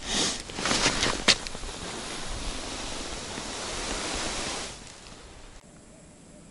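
Rustling and handling noise with a sharp click about a second in, then an even rushing hiss of wind on the microphone that builds and cuts off abruptly near the end.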